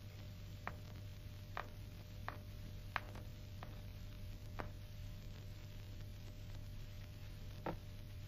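Faint footsteps clicking on a hard floor, about five steps in the first four seconds, then two single clicks later, over a steady low hum and hiss.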